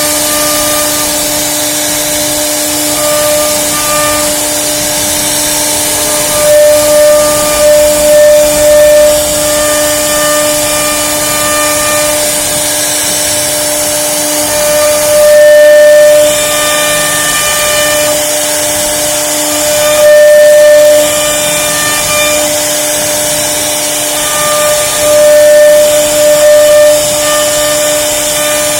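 CNC router spindle running at a steady high speed, a constant whine over a hiss. It grows louder for stretches of one to three seconds, several times, as the bit cuts into the workpiece.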